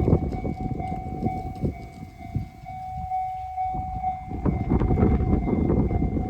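A train passing over a level crossing: a heavy rumble with the rapid clatter of wheels on the rails, easing for a moment midway and then building again. A steady warning tone from the crossing signal rings throughout.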